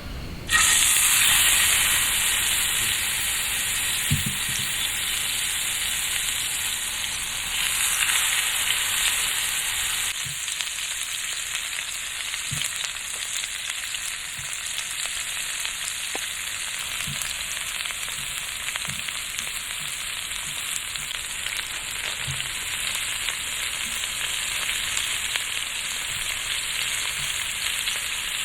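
Food frying in a hot pan: a steady sizzle that starts abruptly just after the start and eases slightly partway through, with a few faint soft knocks.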